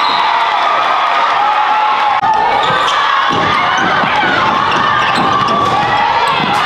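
Basketball dribbled repeatedly on a gym floor amid steady crowd noise and voices, the thumps coming more often in the second half.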